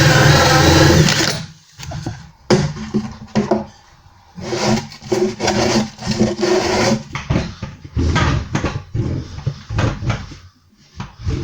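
A hole saw in a power drill cutting through the chipboard back of a kitchen cabinet, opening up a pilot hole for a pipe; the cut stops about a second and a half in. A run of short, irregular bursts of sound follows.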